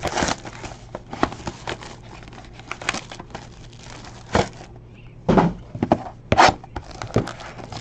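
Plastic and foil trading-card packaging crinkling and tearing as it is handled and opened. Scattered rustles, with a few louder crackles about halfway through and again a little later.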